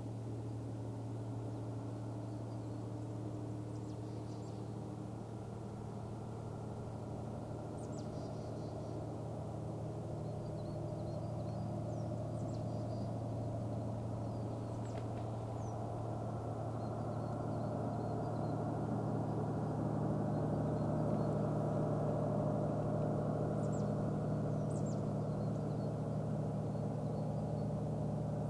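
Diesel train engine running with a steady hum, growing gradually louder as the train approaches. A few faint high chirps come in over it.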